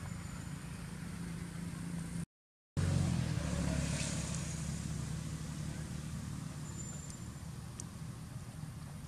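Low, steady rumble of a motor vehicle's engine running nearby, louder for a moment after a brief dropout about two and a half seconds in, then slowly fading.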